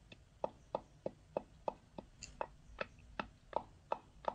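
Wooden pestle pounding whole spices in a wooden mortar by hand: a steady rhythm of short knocks, about three a second.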